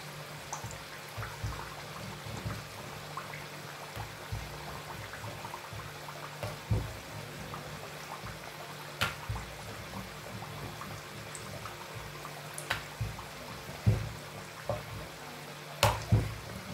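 Samosas deep-frying slowly in hot oil in a kadhai on low heat: a steady sizzle and bubble, with scattered sharp pops and crackles, the strongest in the last few seconds.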